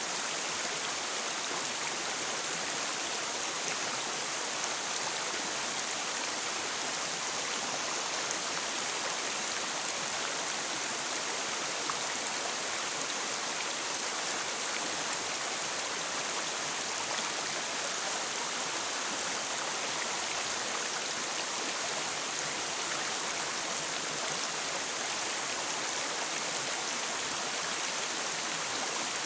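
River water flowing and rushing in a steady, even wash without pauses or swells.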